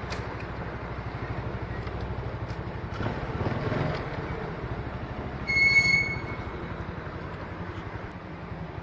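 Small Modenas scooter engine running at low speed with a steady low pulsing while the scooter creeps along. A short high-pitched beep sounds about halfway through.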